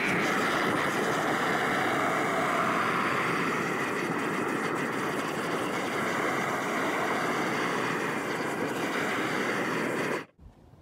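Propane garden torch burner running with a steady rush of flame while charring wood boards; it cuts off suddenly near the end.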